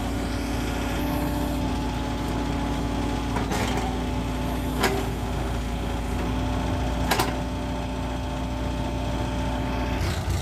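Furukawa mini excavator's diesel engine running while the boom and bucket are worked, with a steady whine from the machine that steps in pitch a few times. Three sharp clacks stand out, at about three and a half, five and seven seconds in.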